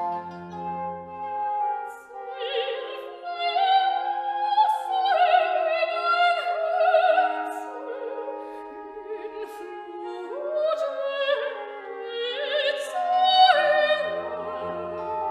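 Classical music: a singer in operatic style with vibrato over an orchestral accompaniment.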